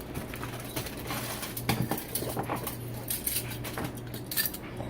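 Rummaging through a canvas mechanics bag: irregular clicks, clinks and rustles as tools are handled and pulled out.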